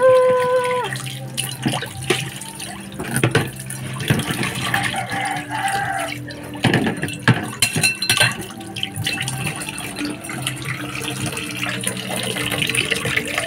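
Tap water running into a stainless steel sink and splashing over a ceramic plate as it is rubbed clean by hand, with a few sharp clinks of the plate and a metal spoon.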